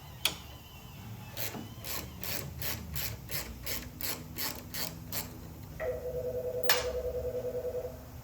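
Hand ratchet wrench clicking in a steady run of about ten strokes while the rear brake master cylinder is unbolted. About six seconds in, a telephone starts ringing with a warbling tone, the loudest sound here.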